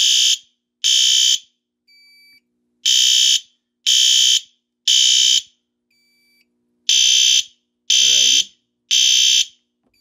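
System Sensor B200SR sounder base sounding a loud, high-pitched alarm tone in the temporal-3 pattern: three half-second beeps a second apart, then a pause of about a second and a half, repeated. It sounds because its smoke detector has been set off with a test magnet, which the panel takes as a supervisory signal. A fainter, shorter beep comes in two of the pauses.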